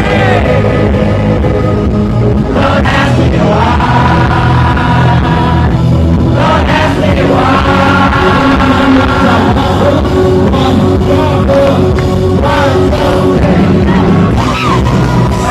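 A rock band playing live, with sung or shouted vocals over it.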